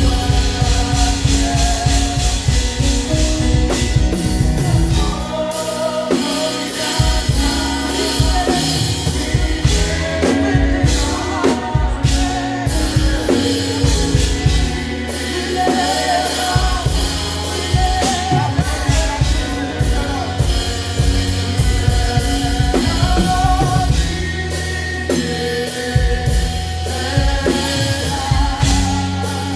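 Live gospel praise band playing with a drum kit, with singing voices carrying the melody over dense, steady drumming.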